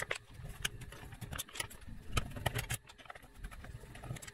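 Small screwdriver undoing the screws of a Sinclair TV80 pocket TV's casing: irregular light clicks and scrapes, with soft knocks from handling the set on the table.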